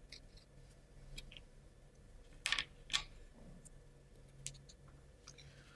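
Faint clicks and taps of laser-cut plywood model parts being handled and pressed together, with two sharper clicks about halfway through and a smaller one a little later.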